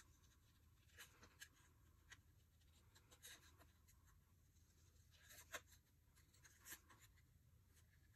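Small scissors faintly and irregularly snipping cardstock while fussy cutting around a small stamped image, with light rustling of the paper as it is turned.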